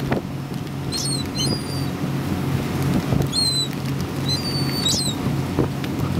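Gulls giving short, high-pitched squeaky calls several times, over the steady low hum of a sightseeing boat's engine and wind on the microphone.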